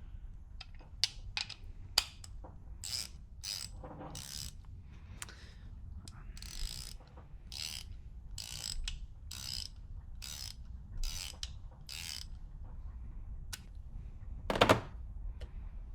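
Hand socket ratchet clicking as its handle is swung back and forth, the pawl ratcheting in a run of short strokes about two a second, with a single louder knock near the end.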